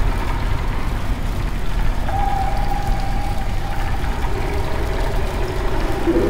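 Road and engine noise inside a moving car's cabin: a steady low rumble, with a faint steady whine joining about two seconds in.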